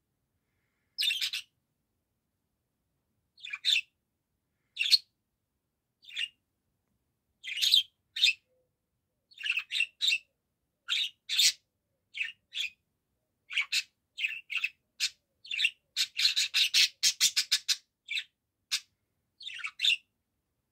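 Budgerigar chirping and warbling in short high calls. They come sparsely at first, grow more frequent, and break into a quick run of rapid chirps about three-quarters of the way through.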